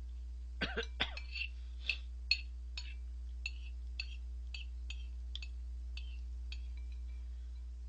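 Metal spoon clinking and scraping against a ceramic bowl while the last of the soup is spooned up, a string of light clinks about two a second that thin out near the end. A steady low electrical hum runs underneath.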